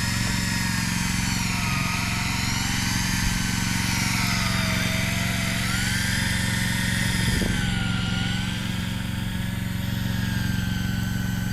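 Electric deep-drop fishing reel winding a fish up from deep water, its motor whine wavering up and down in pitch every couple of seconds as the load on the line changes. Under it runs the steady drone of the boat's diesel engine.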